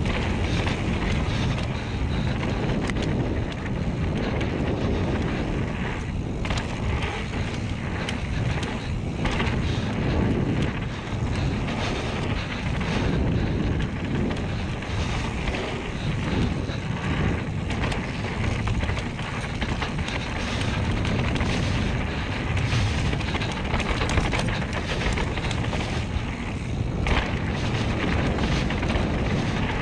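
Wind buffeting the microphone of an action camera on a mountain bike riding fast down a dirt forest trail, a steady low rumble with the tyres rolling on dirt and scattered knocks and rattles from the bike over bumps.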